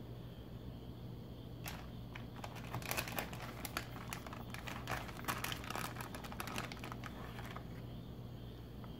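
Plastic food wrapper crinkling and crackling in the hand for several seconds, as sliced deli turkey is handled.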